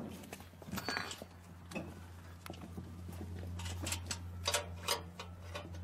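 Scattered metal clicks and knocks of a wrench and bolts on a reaper's steel mounting frame as it is fitted to a walking tractor. A steady low hum runs underneath and grows stronger about halfway in.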